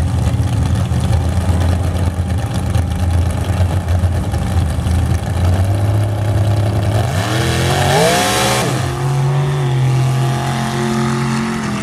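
A mud truck's engine idles steadily, then revs up hard, climbing in pitch over a second or two with a brief rush of noise, and runs on at a higher, steadier pitch.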